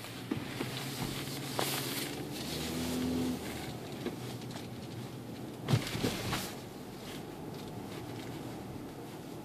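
Cabin sound of a 2013 Hyundai Santa Fe's 2.0-litre turbocharged four-cylinder engine running at low speed, a steady low hum. It firms up briefly in the first few seconds, and a few knocks come through, the loudest a sharp thump just before six seconds in.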